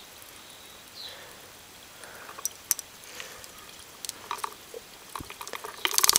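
Light plastic clicks and taps from a battery hydrometer being handled while checking a cell's acid, ending in a quick run of clicks.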